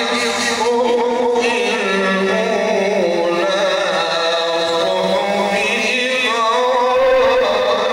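A man reciting the Quran in the melodic Egyptian-style tajwid, holding long, wavering, ornamented notes through a microphone.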